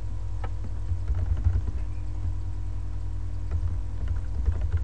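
Computer keyboard typing in quick bursts of keystrokes over a steady low hum, with a single click just after the start.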